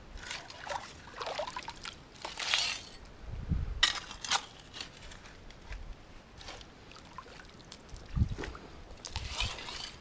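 Shallow creek water splashing and sloshing in irregular bursts, as if disturbed by wading or moving rocks, with a few dull thuds.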